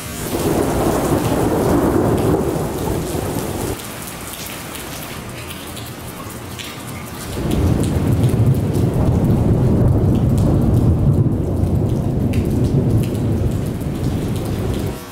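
Two rolls of thunder over steady rain. The first rumble starts at once and dies away after about four seconds. A second, deeper rumble builds about seven seconds in and goes on until near the end.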